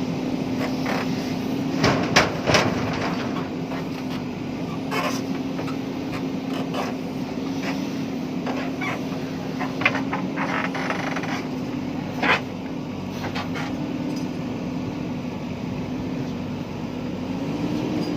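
JCB backhoe loader's diesel engine running at a steady pitch, rising slightly near the end, with scattered sharp clanks and knocks from the digging work. The loudest knocks come about two seconds in.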